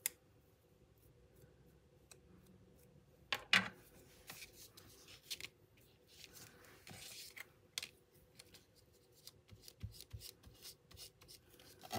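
Faint handling sounds of paste being applied to cardstock: a palette knife scraping paste from a small jar, then a foam blending tool rubbing it onto the paper. Scattered light clicks run throughout, with one sharper knock about three and a half seconds in.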